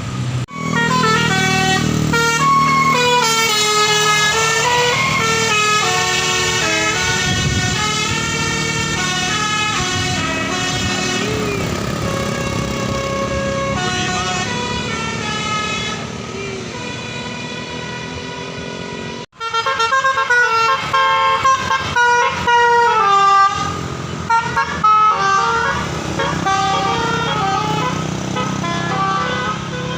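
Basuri-type telolet musical air horn with top-mounted trumpets, playing a tune of stepped pitches over the rumble of a running vehicle. After a brief break near the middle it plays quick, choppy toots.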